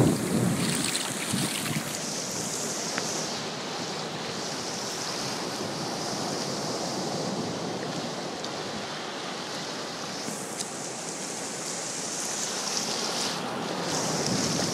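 Shallow surf washing and swirling around the carcass at the water's edge, a steady rush of moving water, louder for the first second or so.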